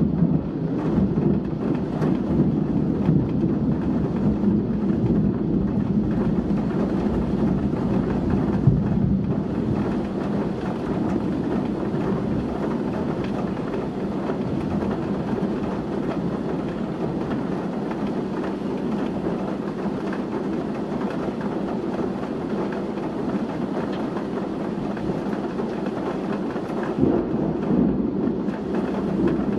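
Heavy rain pouring in strong, gusting wind: a steady, low rushing noise that swells a little near the end.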